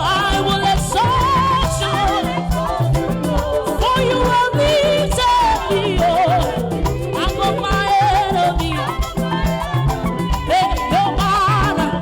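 Upbeat live praise music with a steady dance beat from drums and bass, a melody line over it, and voices singing along.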